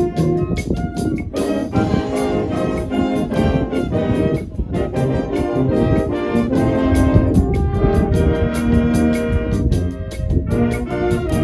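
High school marching band playing live: trumpets and trombones holding sustained melody notes over drums hitting a quick, steady beat.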